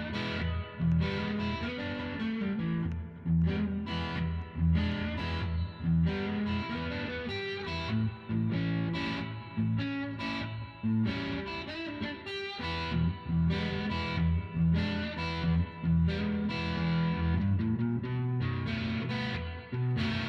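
Music led by an electric guitar with distortion, over a moving bass line and a regular beat.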